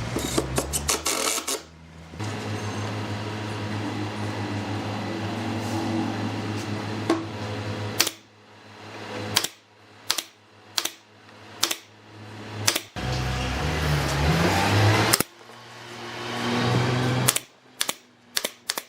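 A small electric power tool's motor running in runs of several seconds, speeding up in pitch during one run, with sharp knocks and taps between the runs.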